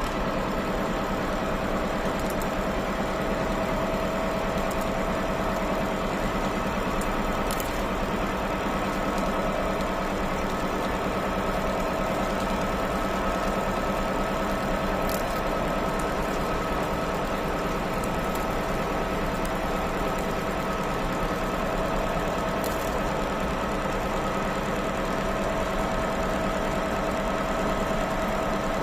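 CNC milling machine cutting, sending chips flying: a steady machine whine of several fixed tones over a constant noise, with a few faint ticks.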